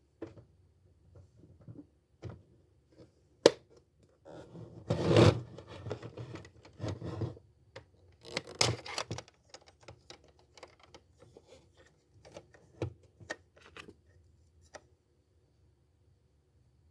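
Hands working paper craft materials at a desk: scattered taps and clicks, a sharp click about three and a half seconds in, and two stretches of rustling or tearing paper, the louder one around five seconds in.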